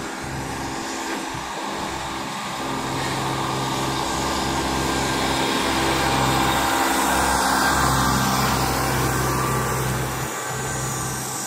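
Steam locomotive drifting slowly forward with steam hissing, the hiss building to its loudest a little past the middle and easing near the end, over a steady low engine hum.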